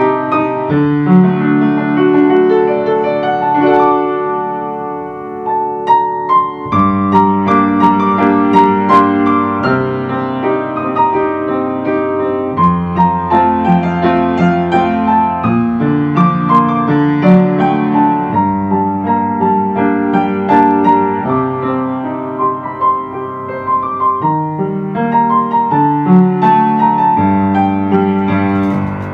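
Slow piano music: a melody of separate struck notes over held low bass notes that change every five or six seconds.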